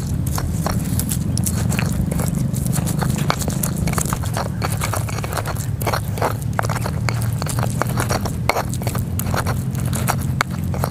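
Stone pestle pounding and grinding raw shallots and garlic in a stone mortar (Indonesian cobek and ulekan): irregular crunching, scraping and knocking of stone on stone. A steady low rumble runs underneath.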